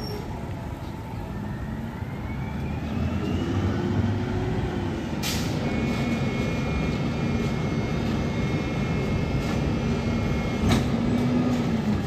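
Rear-loader garbage truck's diesel engine running, its pitch rising and falling as it revs up and settles back, with a faint rising whine early on from the packer's hydraulics. A couple of sharp knocks stand out, about five seconds in and again near the end.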